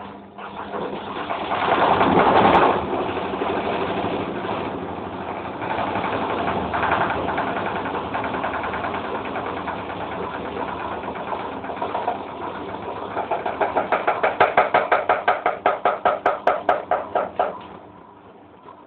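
Hoover Electra 1100F washing machine on its final spin, the drum and motor running loud and steady. In the last few seconds it turns into a fast, even pulsing, then drops away sharply near the end.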